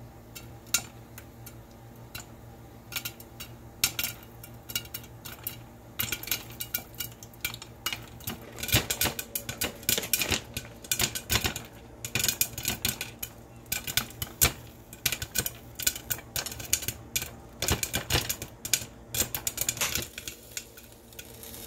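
Yellow popcorn kernels popping in hot avocado oil in a covered pan with a glass lid. A few scattered pops at first, then rapid, dense popping through the middle, thinning out near the end as the batch finishes.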